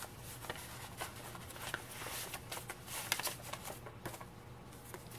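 Sheets of coffee-stained paper and paper envelopes rustling and crinkling as they are handled, with scattered small crisp crackles, most of them about three seconds in.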